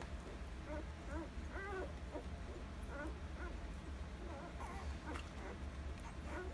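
A litter of one-week-old Alaskan Malamute puppies nursing, giving many short high squeaks and whimpers, over a steady low hum.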